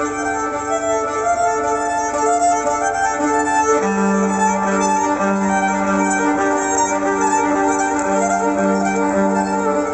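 Live band playing an instrumental passage with a violin carrying the melody in long held notes; a lower held melodic line enters about four seconds in.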